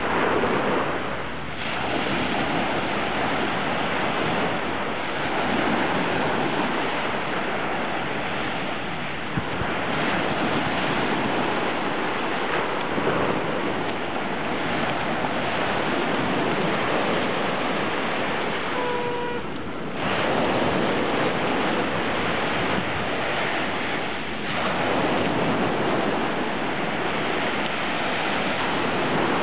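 Small Black Sea waves breaking and washing up on a sandy beach: steady surf, with some wind on the microphone.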